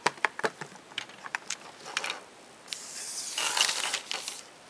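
Sharp clicks and taps of two iPod Touch players being handled and knocked against each other and the table, then a louder rustle of a paper sheet being moved, about three seconds in.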